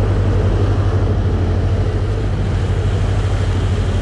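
Boat engine running steadily under way while trolling lures: a constant low hum under the rush of the churning wake, with wind on the microphone.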